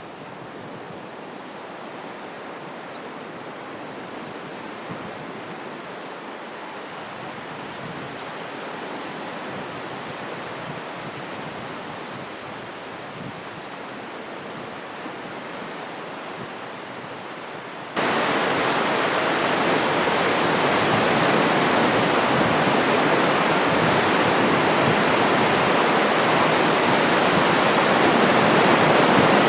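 Rushing floodwater: a steady hiss of flowing water that jumps suddenly louder about eighteen seconds in.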